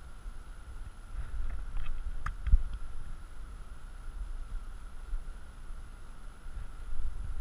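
Low, gusting rumble of wind on the microphone. A few light clicks and a sharp knock come between one and three seconds in, over a faint steady high-pitched tone.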